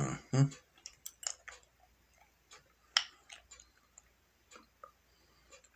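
A short low hum of a voice right at the start, then sparse, irregular soft clicks and ticks close to the microphone, the sharpest one about three seconds in.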